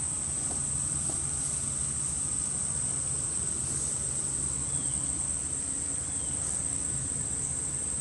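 Steady high-pitched insect chorus, with a low hum underneath.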